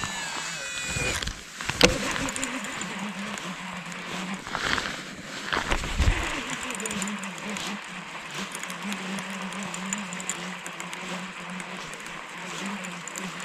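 A cast with a baitcasting reel: the spool whines briefly, falling in pitch, and a sharp click comes just under two seconds in. The reel is then wound in steadily with a low, even hum.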